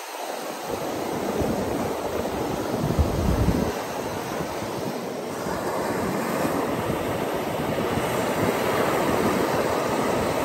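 Ocean surf breaking and washing up a sandy beach, with wind rumbling on the microphone, strongest about three seconds in.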